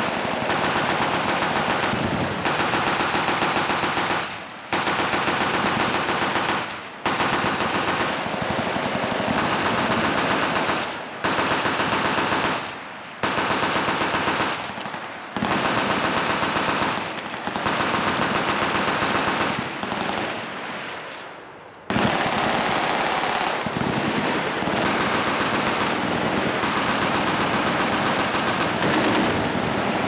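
Full-auto machine gun fire, including a tripod-mounted water-cooled belt-fed machine gun: long bursts of about two seconds follow one another with brief breaks. About twenty seconds in, the firing dies away for a moment before starting again.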